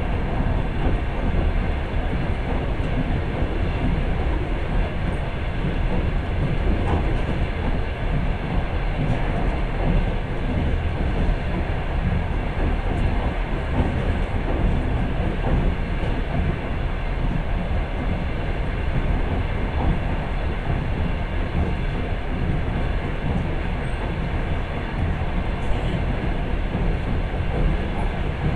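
Passenger train running along the track, heard from on board: a steady rumble of wheels on rails with no breaks or pauses.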